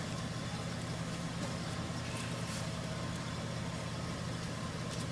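Steady low mechanical hum, like an engine idling, with a few faint ticks.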